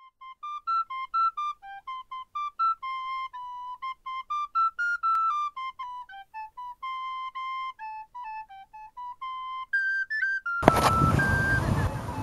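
A solo flute plays a lilting traditional-style tune, one note at a time. About ten and a half seconds in, a loud, steady rush of outdoor noise, like wind on the microphone, takes over.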